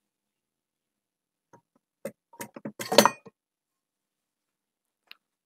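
Garrard 401 turntable's cast aluminium platter being lifted off its spindle: a quick run of clicks and metallic clinks, loudest about three seconds in, then one faint click near the end.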